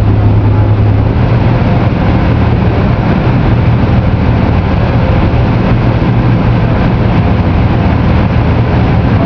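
Heavy engine machinery running steadily, a loud low drone.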